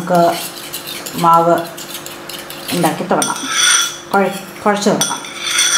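Metal spoon stirring a liquid mixture in a ceramic bowl. It scrapes against the sides in short squeaks, with a few ringing clinks against the bowl.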